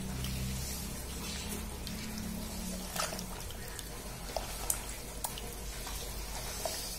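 Hand mixing raw pork pieces in tamarind water in a metal pot: soft sloshing and squelching of the liquid and meat, with a few sharp clicks.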